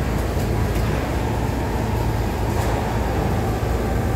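Steady low hum and rumble of running welding-shop machinery, with a strong electrical hum underneath and a few faint taps from the workpiece being handled.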